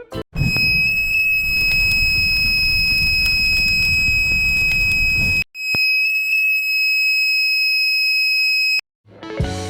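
A 12 V buzzer in a home-built smoke detector circuit sounding a steady, high, piercing alarm tone. It sounds for about five seconds over a low rumble, cuts out briefly, then sounds for about three seconds more.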